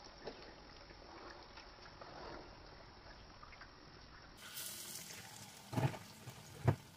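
Hot oil sizzling with light crackles around sliced plantains frying in a cast-iron skillet. Two dull thumps sound near the end, about a second apart, louder than the sizzle.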